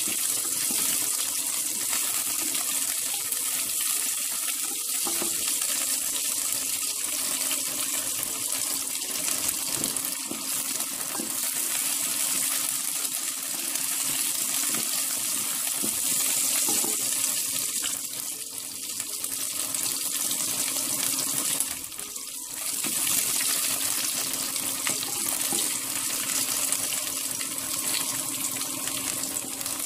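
Steady sizzle of food frying in hot mustard oil in a pressure cooker, with a brief dip about 22 seconds in.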